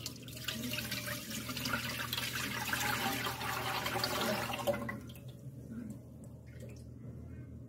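Water pouring and splashing into a container, then easing off about five seconds in to a fainter trickle. This is the kitchen work of straining or rinsing soaked corn flour (masa) until the water runs clear.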